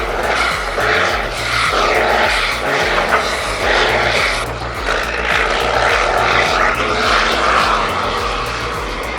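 Loud engine noise from heavy machinery working hard, over background music with a steady repeating bass.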